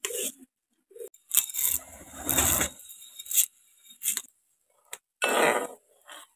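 Sago (tapioca pearls) poured and pushed by hand from a bowl into hot water in an aluminium uruli, heard as several short bursts of pattering and clinking. Near the end, a slotted metal ladle stirs in the pot.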